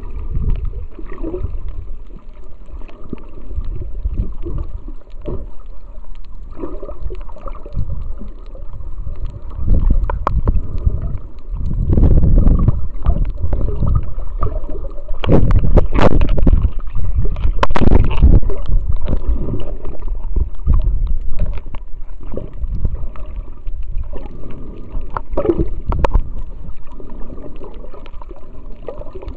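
Water sloshing and gurgling, heard muffled through an underwater camera's housing, with a deep rumble. It grows louder and choppier for several seconds in the middle, with a few sharp knocks.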